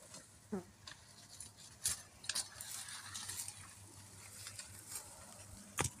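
Irregular crackling and rustling of dry leaves and twigs underfoot and under the hands, with a brief falling voice-like sound about half a second in.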